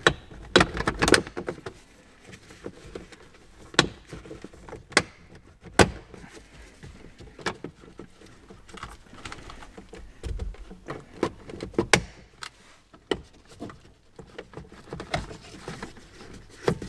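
Audi Q7's plastic upper steering column cowl being pulled forward and worked free of its snap-in metal compression fixings: a string of irregular sharp clicks and knocks as the trim pops loose and is handled, the loudest in the first second or so and again around the middle.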